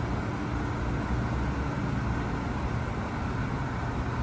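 New York City subway train rolling slowly into an elevated station: a steady low rumble and hum from the cars.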